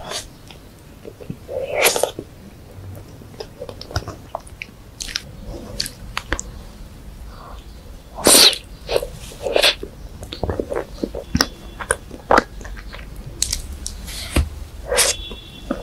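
Close-miked chewing of a soft, chocolate-smothered dessert: sticky, wet mouth clicks and smacks at an irregular pace, with a few louder smacks about 2, 8, 10 and 15 seconds in.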